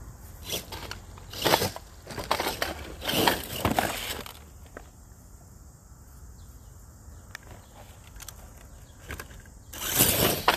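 RC mud truck's tires crunching and churning through gravel and dirt in a run of rough bursts over the first four seconds, then again near the end.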